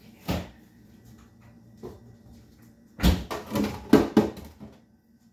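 Kitchen knocks and bumps from things being handled at the counter. One thump comes shortly after the start, and about three seconds in a quick run of several knocks and bangs lasts about a second.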